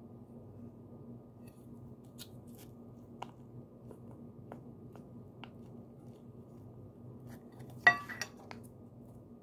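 A metal putty tin handled by hand: a few faint ticks and taps, then a sharp click with a couple of smaller ones about eight seconds in as the plastic-wrapped putty is lifted out of the tin. A steady low hum runs underneath.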